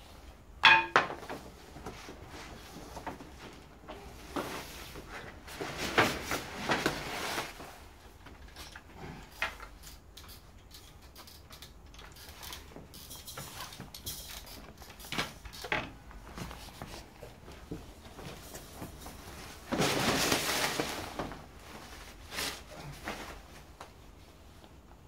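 Wooden crib parts being unpacked from a cardboard box: the wooden rails and slats knock against each other and the box, and the cardboard and protective wrapping rustle. The loudest sound is a sharp knock about a second in; two longer spells of rustling come a few seconds in and near the end.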